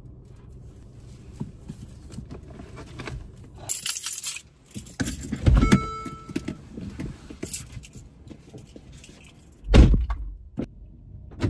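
Someone getting out of a parked car: keys jangling, the car door opening with a loud knock midway and a brief electronic chime, then the door shutting with a heavy thud near the end.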